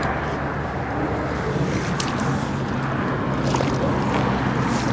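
Wind noise on the microphone with a steady low hum underneath, and a couple of faint clicks.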